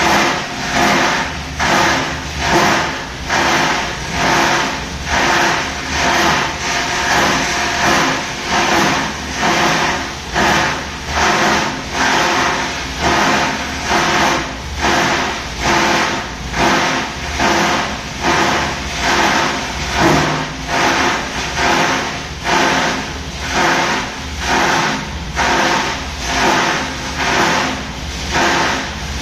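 Plastic rope waste grinder machine running: a loud, steady mechanical din that swells and dips in even pulses a little more than once a second.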